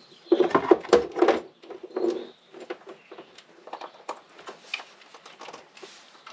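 Rustling and light clicking of packaging and small parts being handled during an unboxing. The handling noise is loudest in the first second and a half, then thins out to scattered clicks.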